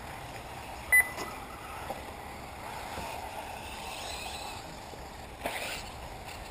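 Electric 1/8-scale RC off-road buggies running on a track: faint whines from their motors rise and fall over a steady rumble of tyres on the surface. There is a sharp click with a brief ringing tone about a second in, and a short rush of noise near the end.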